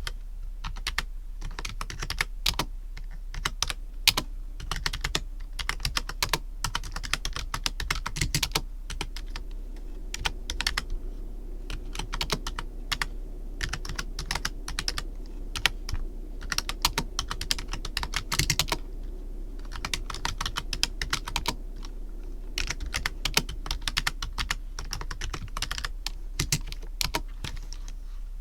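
Computer keyboard being typed on: quick, irregular runs of key clicks and taps, with brief pauses between runs. A steady low hum sits underneath as background noise.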